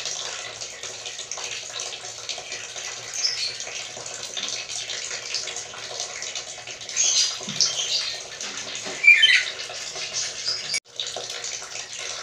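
Black-capped lory giving a few short squeaky calls, the loudest about nine seconds in with a falling pitch, over a steady hiss. The sound drops out for a moment near the end.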